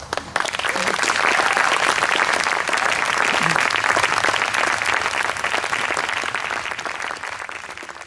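Audience applauding: a few first claps, then dense steady clapping that slowly fades out near the end.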